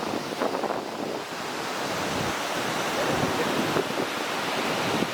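Waterfall pouring down in a steady, loud rush of water noise, with wind buffeting the microphone.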